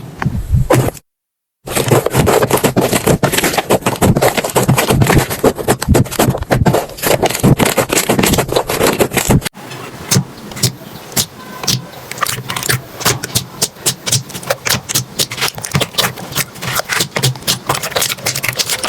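Slime being pressed and squeezed by hand, a dense crackling and squishing. After a cut about halfway through it changes to a fast run of sharp clicks and pops.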